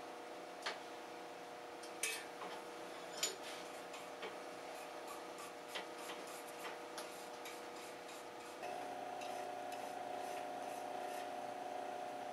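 Wire brush scrubbing forge scale off a hot forged steel drive hook clamped in a bench vise: a few sharp scrapes and clicks, then lighter scratchy strokes. A steady hum runs underneath and gets louder about eight and a half seconds in.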